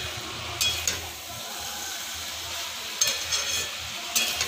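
A spatula scrapes and knocks against a frying pan as a potato, cauliflower and soya-chunk curry is stirred, over a steady sizzle of frying. Quick clusters of scraping clicks come just after the start, about three seconds in, and again near the end.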